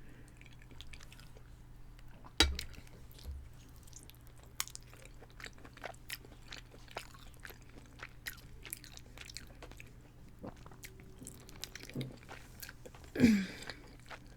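Close-miked chewing of chicken parmesan and spaghetti, with many soft mouth clicks. There is a sharp knock about two seconds in, and a short vocal sound falling in pitch near the end.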